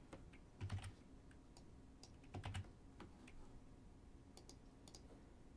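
Faint computer keyboard key presses, typical of copy and paste shortcuts: two short clusters of keystrokes, the first under a second in and the second about two seconds later, followed by a few lighter clicks.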